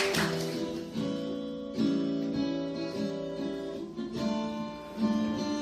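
Acoustic guitar playing strummed chords that ring out, with a new chord struck about every second.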